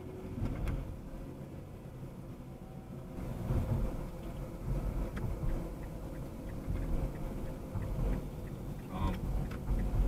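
Steady low rumble of road and engine noise heard from inside a moving car's cabin, with faint regular ticking in the second half.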